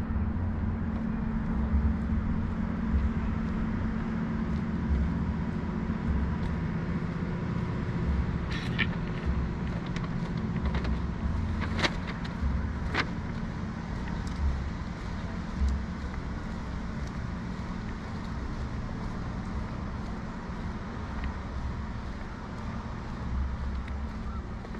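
Steady city outdoor rumble of road traffic, with a constant low hum and an uneven low rumbling underneath. A few sharp clicks come around 9, 12 and 13 seconds in.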